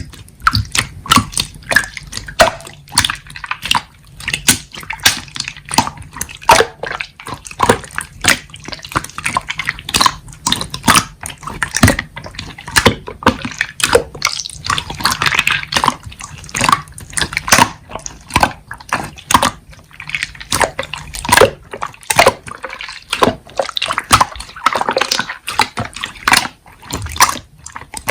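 Slime being squeezed and poked by hand: a fast, irregular run of wet clicks and squelches.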